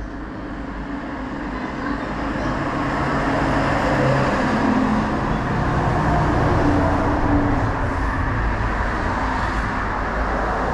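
Road traffic: a motor vehicle's engine and tyres, growing louder over the first few seconds and then staying loud.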